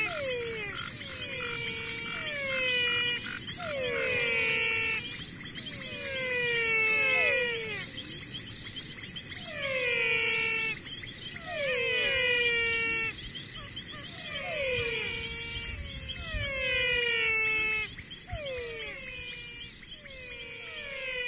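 A chorus of animal calls, falling whistled calls repeating every second or two, over a steady high-pitched insect drone. It grows a little quieter near the end.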